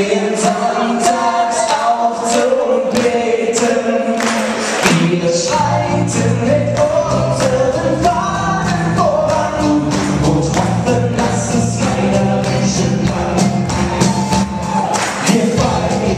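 Live band playing a carnival song: voices singing over a steady drum beat, with the bass guitar and full band coming in about five seconds in.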